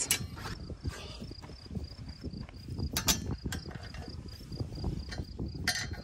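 Metal clicks and rattles from an Alaskan chainsaw mill's frame being adjusted by hand and with a wrench to set the cut depth, with a few sharper clicks around the middle and near the end. A faint high chirping repeats steadily several times a second behind it.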